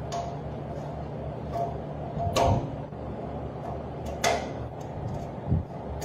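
Small metal parts of a miniature engine clicking and knocking as they are fitted by hand onto its cylinders: three separate clicks about two seconds apart, over a steady low hum.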